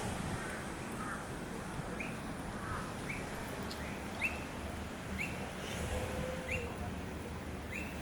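A bird calling with short rising chirps, about one a second, over a steady low background rumble.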